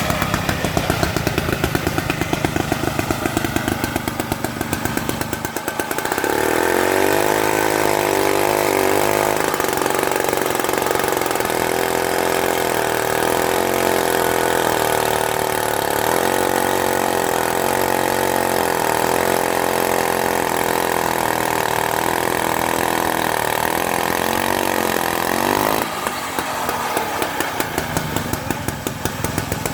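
Petrol engine of a 1954 AKCO 306 two-man chainsaw idling with an even pulse. About six seconds in it is opened up and runs fast, its pitch wavering as it takes load cutting through oak, then drops back to idle near the end.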